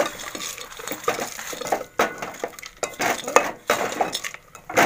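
Steel spoon scraping and clinking irregularly against an aluminium pot while crushed roasted peanuts are stirred into thick jaggery syrup.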